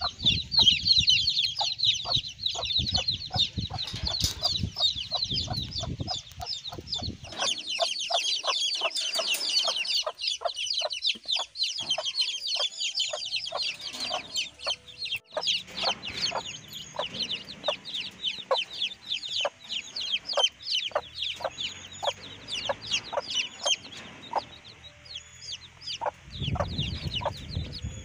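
Newly hatched chicks peeping continuously, many at once in a rapid stream of high chirps, while the mother hen, a broody desi hen, clucks. A low rumble runs under the first several seconds and comes back near the end.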